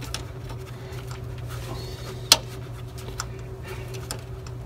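Small clicks and scrapes of hardware being handled and worked by gloved hands, with one sharper click a little over two seconds in, over a steady low hum.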